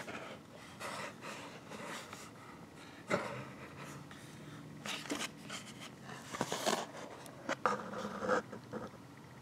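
Handling noise from a cardboard coin presentation folder being shifted and turned in the hand: irregular rustling, scraping and light knocks, busier in the second half.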